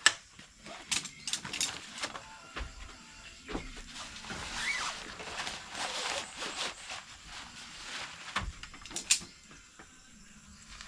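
Scattered clicks and knocks of objects being handled, irregular and sharp, with a quieter stretch near the end.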